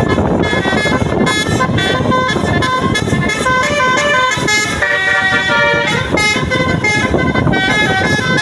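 Tour bus 'telolet' musical air horns playing a quick melody of changing notes, several tones a second, over road and engine noise.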